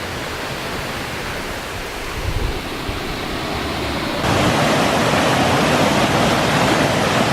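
Rain-swollen waterfall, a steady loud rush of falling water that jumps suddenly louder about four seconds in.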